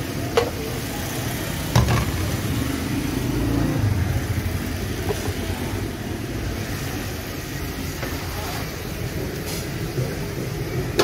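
Street traffic noise, with vehicle engines running steadily and two sharp knocks about half a second and two seconds in.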